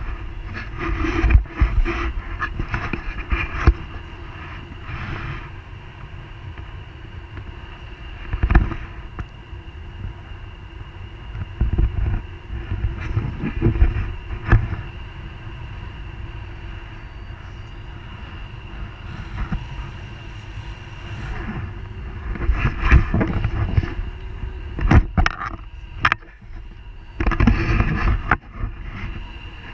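Wind buffeting an action camera's microphone in flight under a paraglider: a steady rumbling rush broken by loud gusts every few seconds.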